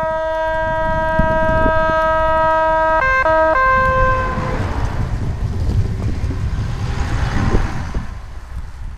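SA109 railbus sounding a long horn blast as it approaches. The horn changes tone briefly about three seconds in, then fades as the railcar passes with a low rumble of engine and wheels and a hiss of spray.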